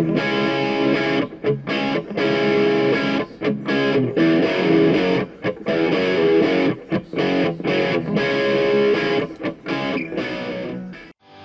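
Outro music led by a distorted electric guitar, playing steadily and stopping abruptly near the end.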